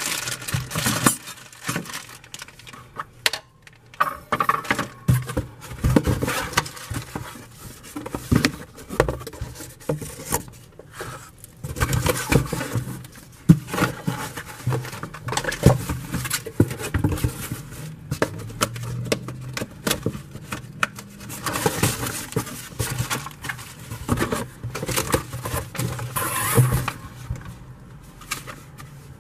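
Plastic wrapping crinkling and paper sheets rustling as they are handled and unfolded, in dense, irregular rustles and crackles.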